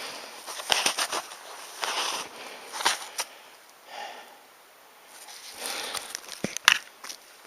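Footsteps crunching in snow at an uneven pace, easing off midway, with a sharper click near the end.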